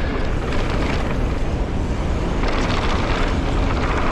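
Wind rushing over an action-camera microphone, with the tyre roar and constant chatter and rattle of a mountain bike riding fast down a dirt jump trail.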